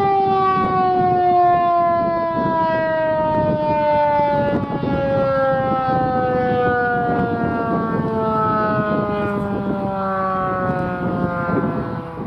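Federal Signal 2001-SRN outdoor warning siren winding down at the end of its alert, its wailing tone sliding steadily lower in pitch.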